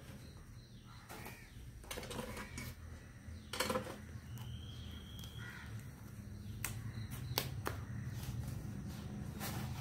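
Sharp clicks and crackles of thin sticks being pushed through a stiff jackfruit leaf and snapped off as it is pinned into a cup, over a low steady hum. A few harsh caws sound in the background.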